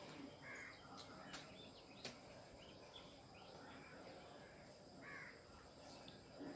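Near silence: faint room tone with a few faint bird calls and a few faint clicks.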